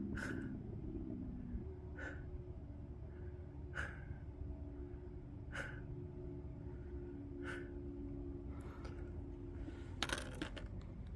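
A person breathing hard after a steep climb, one breath about every two seconds, over a faint steady low hum. A quick cluster of clicks and rustling about ten seconds in.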